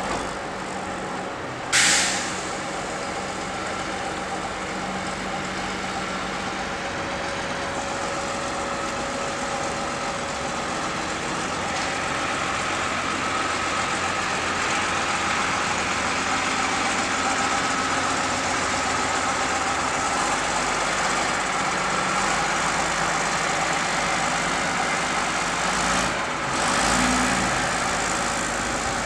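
Diesel engine of a rail maintenance draisine running steadily as the vehicle moves slowly along the track. A short sharp burst of noise comes about two seconds in, and another near the end.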